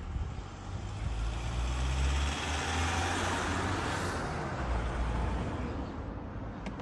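A road vehicle passes; its rumble and rushing road noise swell over a couple of seconds and fade. Underneath is the steady hiss of a small oxy-fuel lead-welding torch.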